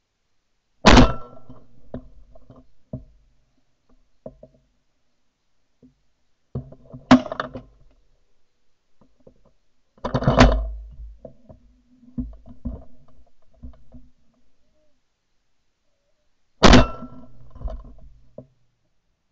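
Four shotgun shots heard through a gun-mounted camera, spread several seconds apart, each cut off sharply and trailing away, with softer clicks and knocks of the gun between them.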